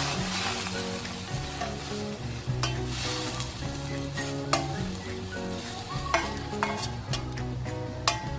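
A utensil stirring tom yum paste and water in a pan over a steady sizzle, with a few sharp knocks of the utensil against the pan. Background music plays under it.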